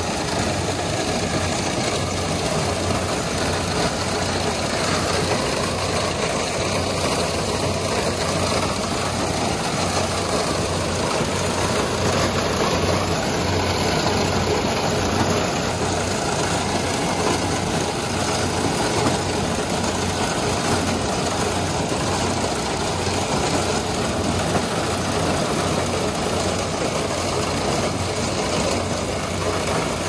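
Kubota DC-70 Plus combine harvester running steadily as its corn header gathers cornstalks: a constant diesel engine drone mixed with the rattle of the header machinery.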